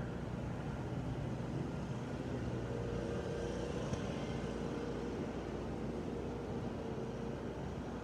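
Lawn mower engine running steadily at a distance, a low even hum with a slight swell in the middle.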